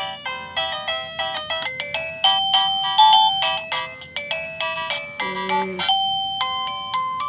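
Liztek portable wireless doorbell receiver playing a chime melody of quick electronic notes through its small speaker; a new tune with longer held notes starts about six seconds in.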